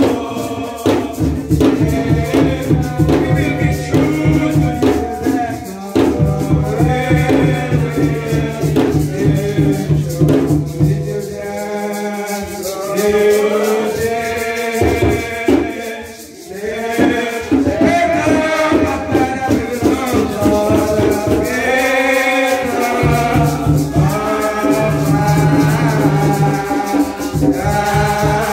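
Congregational hymn singing with shakers rattling steadily to the beat, over a held low note that drops out a few times.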